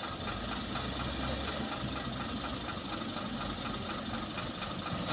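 Heavy diesel engines of a Mitsubishi Fuso dump truck and a motor grader idling steadily.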